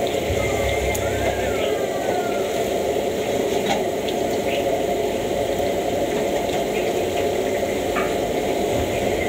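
Gas wok burner running at full flame: a steady rushing noise that does not change, with a couple of light clicks about four and eight seconds in.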